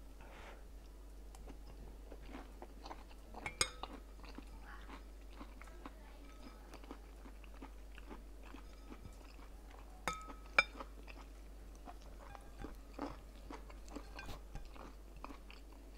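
A person chewing and slurping spoonfuls of mushroom curry, with small wet mouth clicks throughout. A few sharper clicks stand out, about a third of the way in and twice close together near two-thirds, from a metal spoon against the glass bowl.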